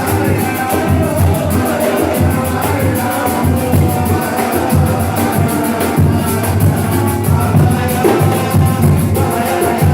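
A percussion group playing music: deep drums keep a steady beat under a fast, even ticking of higher percussion, with pitched tones over it.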